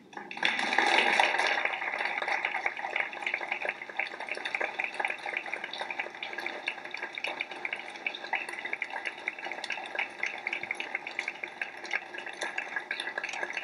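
Audience applause: dense clapping by many hands that breaks out right at the start, is loudest over the first second or two, then goes on steadily.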